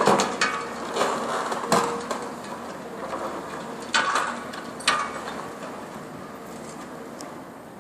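Reinforced concrete being broken during building demolition: several sharp cracking knocks, the loudest near the start and about four and five seconds in, over the steady hum of the demolition machine.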